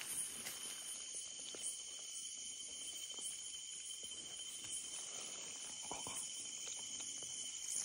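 Steady high-pitched chorus of night insects such as crickets, with faint rustling and crackling of leaves and twigs as someone moves through undergrowth.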